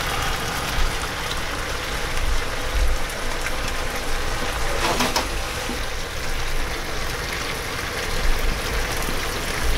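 Pork, eggplant and green pepper miso stir-fry sizzling steadily in a frying pan on the heat.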